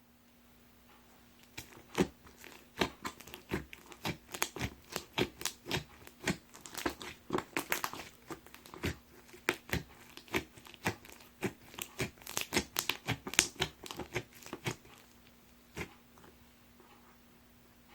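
Crunchy slime mixed with packing-material pieces being squeezed and pulled by hand, giving rapid crackling and sharp pops that come thick through the middle and thin out near the end.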